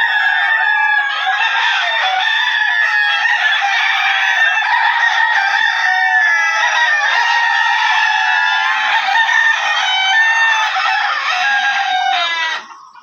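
A large flock of chickens calling all at once, with many overlapping clucks and roosters crowing, loud and continuous. The sound dips briefly near the end.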